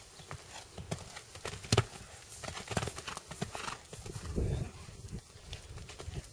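Hoofbeats of a horse cantering on a sand arena: soft, uneven thudding, with one sharper knock a little under two seconds in.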